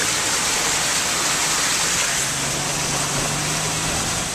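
Steady rushing noise of a car driving with the window open, wind and road noise mixed with fast floodwater in a creek running up to the top of its bank. A low engine hum joins about two seconds in.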